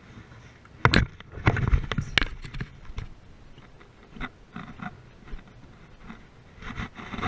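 Close handling noise from unhooking and holding a freshly caught fish: a sharp knock about a second in, then a quick cluster of clicks and scrapes, with scattered lighter clicks after.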